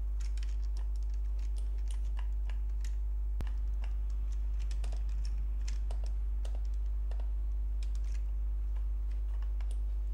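Irregular, scattered clicks of a computer keyboard and mouse, over a steady low hum.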